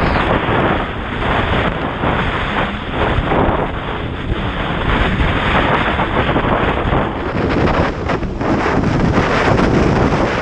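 Heavy wind buffeting the microphone on a Yamaha XLT1200 WaveRunner running at speed through rough chop. The personal watercraft's engine and splashing water sit underneath, and the whole sound swells and dips continually.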